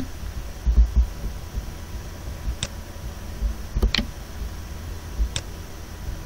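A few sharp computer mouse clicks, including a quick double click about four seconds in, over a steady low hum of microphone and room noise, with a couple of dull low thumps about a second in.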